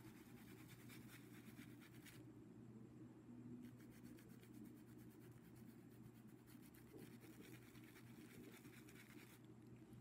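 Faint, soft scratching of a paintbrush stroking fabric paint onto cloth, pausing for a moment about two seconds in, over a low steady hum.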